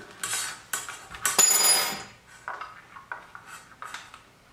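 Metal clinks and rattles of a hex key working loose the pommel nut at the bottom of a fencing sabre's handle. A string of sharp clicks, the loudest a brief metallic ring about one and a half seconds in, then lighter clicks.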